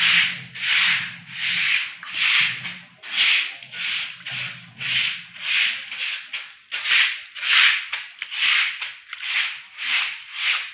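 A short hand broom scrubbing a wet floor in quick, even back-and-forth strokes, about three every two seconds, each stroke a scratchy swish.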